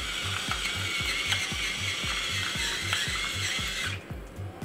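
Hand-turned seasoning mill grinding onto fish fillets, a gritty ratcheting crunch that stops near the end. Background music with a steady beat plays underneath.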